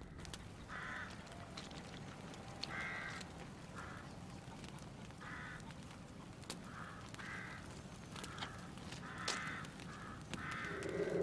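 Crows cawing in the background, a dozen or so short calls spaced about a second apart over faint outdoor ambience.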